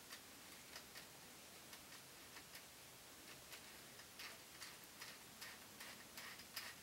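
Faint, irregular light clicks and ticks from a bicycle gear shift cable and its cut housing being handled as the inner cable is pushed through, more frequent in the second half.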